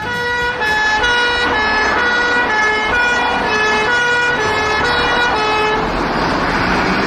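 Electronic two-tone fire truck siren, a high and a low note alternating repeatedly. About six seconds in it gives way to a loud rushing hiss.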